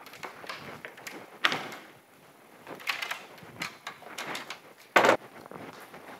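Doors in a hard corridor: metal double doors knocking shut, then another door pushed open with a sharp bang about five seconds in, among several smaller knocks and footsteps.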